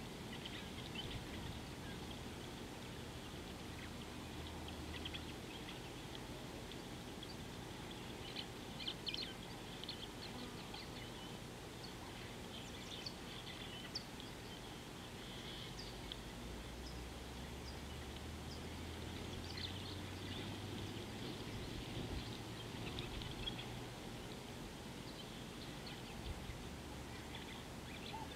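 Faint outdoor ambience with birds chirping and calling here and there, short high notes throughout, over a steady low hum.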